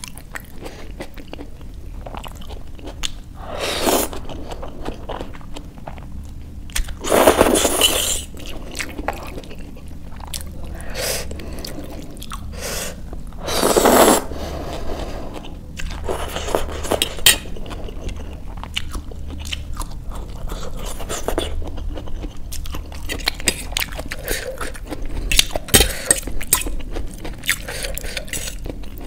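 Close-miked eating sounds of instant noodles: several long slurps, the loudest about halfway through, between steady wet chewing and the clicks of a fork scraping and tapping a steel plate.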